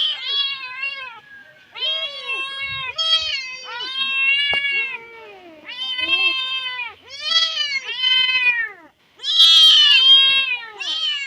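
Stray kittens meowing loudly, one drawn-out cry after another, with some calls overlapping as more than one kitten cries at once. These are distress calls of kittens calling for their mother. The loudest, harshest cry comes about two-thirds of the way through.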